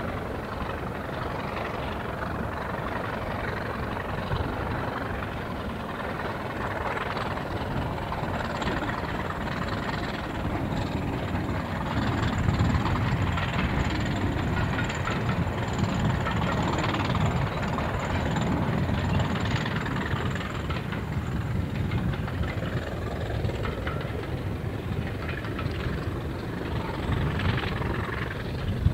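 Class 20 diesel locomotive D8059's turbocharged English Electric V8 engine working steadily as it hauls a train past, a low rumble that grows louder about twelve seconds in as it draws nearer. A thin high whistle runs through the middle.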